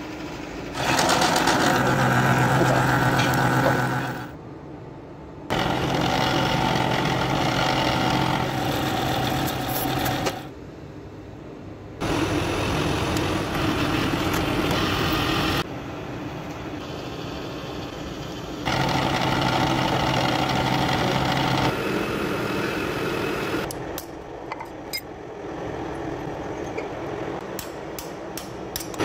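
Milling machine running and drilling into an aluminium block, in several short cuts that start and stop abruptly, with a quieter steady machine hum between them. Near the end, a few sharp clicks over the hum.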